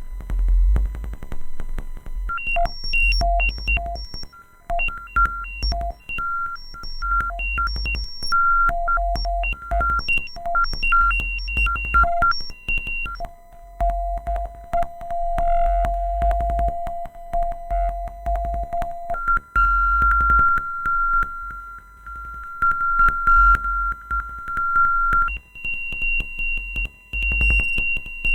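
Synthesized electronic music built on pure tones from a harmonic series, pitched an octave apart, over a low pulsing beat. For the first half the tones jump between octaves as short blips. Then single held notes step upward an octave at a time, about every six seconds.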